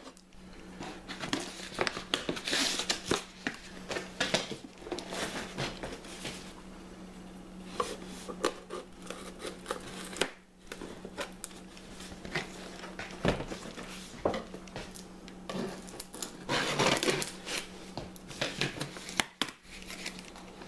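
Cardboard shipping boxes being cut open and handled: a knife slitting packing tape, with cardboard flaps rustling, scraping and knocking in quick, irregular bursts. A faint steady hum runs underneath.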